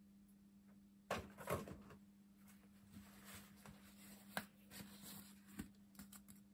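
A few light knocks and clicks over a steady low hum, with the loudest cluster about a second in and single smaller clicks later.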